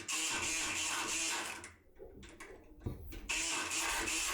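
Multipick Kronos electric pick gun buzzing as it vibrates the pick inside a lock cylinder. It runs in two spells, with a pause of about a second and a half between them and a sharp click near the end of the pause.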